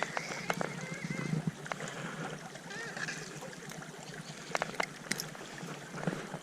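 Steady rush of a small stream, with scattered sharp clicks and taps over it.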